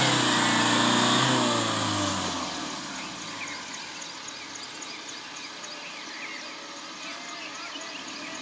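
Tata Safari Storme 4x4's 2.2-litre Varicor diesel engine pulling the SUV over a rutted mud track. It runs loud for about two seconds, then the revs fall and it carries on at a quieter, steady crawl.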